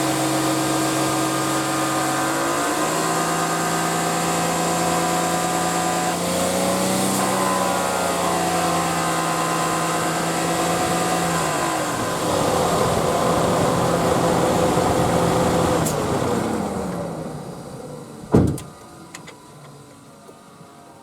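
Nissan Elgrand E51's VQ25DE 2.5-litre V6 held at raised revs in steps: the revs rise about two seconds in and again around six seconds, drop back near the middle, then fall away about sixteen seconds in. At the higher revs the owner hears an abnormal noise that he traces to the air-conditioning compressor, which replacing the compressor, receiver drier and expansion valve has not cured. A single loud thump comes near the end.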